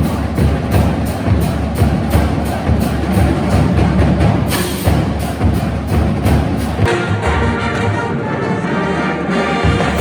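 Music with a fast, steady percussive beat; about seven seconds in the beat gives way to sustained held notes.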